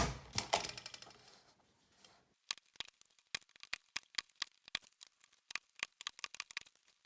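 A long-arm stapler punching a staple through a ribbon-bound notebook spine with a loud sharp clack and a second smaller knock, then, after a short pause, a run of light irregular clicks.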